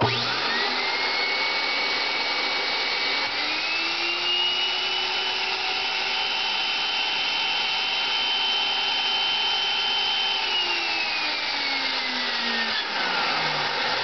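Ametek-Lamb central-vacuum universal motor starting up and whining up to speed, its pitch stepping higher about three seconds in and holding steady, then falling in a long spin-down after the power is cut about ten seconds in. Its field coil is rotated to the far position, which makes the motor run faster at the cost of brush life.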